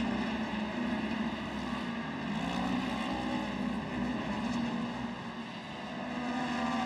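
A pack of pro stock side-by-side UTV racing engines running hard together, their engine note rising and falling as the cars accelerate and lift for the turns.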